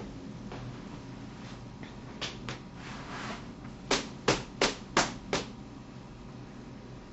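A quick run of five sharp knocks, about three a second, after a couple of fainter clicks.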